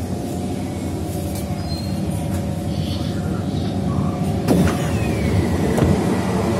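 Kawasaki C151 electric train running: a steady low hum of motors and wheels on the track. A sharp knock comes about four and a half seconds in, followed by a whine that falls in pitch over a couple of seconds.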